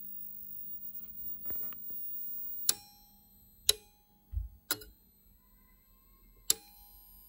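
Four sharp clicks from the replaced relays of a Samil Power Solar River 3000TL grid-tied inverter, roughly a second apart, as the countdown runs out and the inverter reconnects to the grid. A faint steady tone sets in after the clicks. The relays switching in is the sign that the relay-fault repair has worked.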